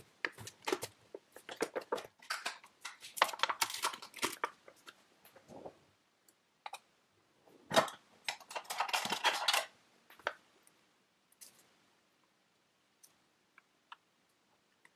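A plastic-lidded yogurt tub being opened: clicks and crinkling as the lid comes off and the foil seal is peeled back, with a sharp snap about halfway through followed by close to two seconds of crinkling. After that come only a few faint taps as yogurt is spooned into a bowl of cereal.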